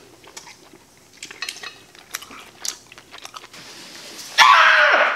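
Faint clicks of cutlery on a plate and small chewing crunches. About four seconds in, a loud scream starts, breaks off for a moment and comes again, falling in pitch at the end.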